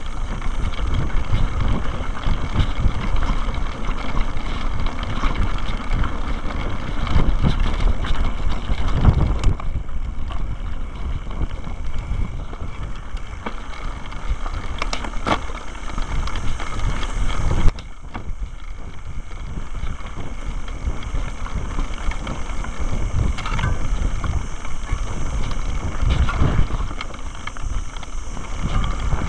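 Mountain bike riding down a rough dirt trail, heard through a camera mounted on the bike: a continuous rumble and rattle from tyres over stones and the frame jolting, with wind buffeting the microphone. There is one hard knock about two-thirds of the way through.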